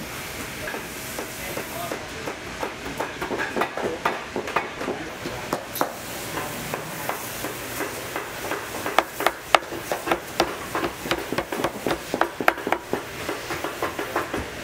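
Irregular light taps and clicks, several a second, from hand work on a leather work boot at the bench, growing busier and sharper about two seconds in and again past the middle.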